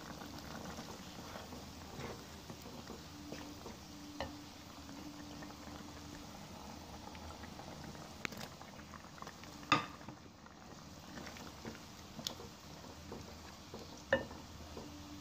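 Mutton pieces simmering in their own liquid in a nonstick pot, a steady bubbling and spitting. Scattered sharp knocks, the loudest about ten seconds in, as chopped tomatoes are tipped in from a plastic cutting board and stirred with a plastic spatula.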